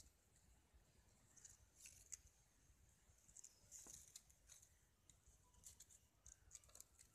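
Near silence, with faint scattered scratchy clicks from two kittens scuffling and pawing at each other on a concrete floor.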